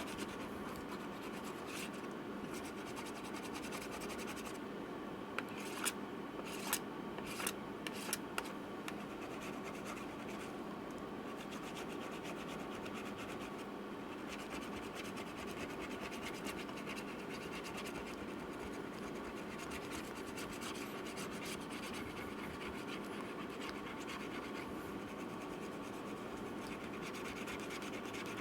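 Steady scraping and rubbing of a tool prying at the glued-in old battery inside a 2012 MacBook Pro Retina, with a few sharp clicks between about five and eight seconds in.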